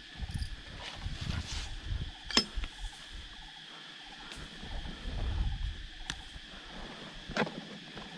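Several sharp knocks or clicks, the loudest about two and a half seconds in and two more near the end, over low rumbling and a faint steady high hum.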